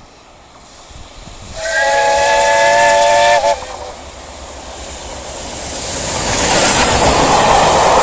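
Steam locomotive whistle, a chord of several notes held for about two seconds that sags slightly in pitch as it cuts off. Then the train grows steadily louder as it approaches and passes, a rushing noise of steam and wheels.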